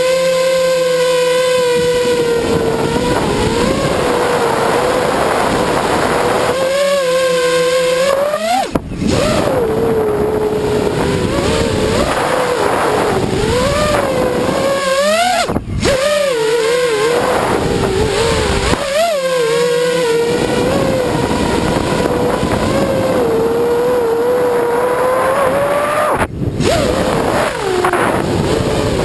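FPV drone's motors and propellers whining, the pitch wavering up and down with the throttle. Three times the pitch swoops up and the sound cuts out for a moment.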